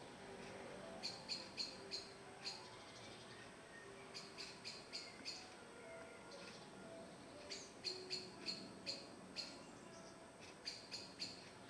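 Spotted flycatchers calling: short, sharp ticking calls given in quick runs of several a second, with pauses between the runs.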